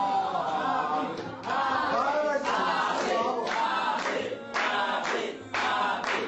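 A group of voices singing together, with hand claps joining in about a second in.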